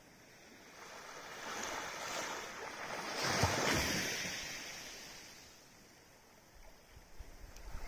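A small wave washing up the beach at the water's edge: a hiss that swells to a peak about halfway through and then fades as the water draws back. Near the end, wind rumbles on the microphone.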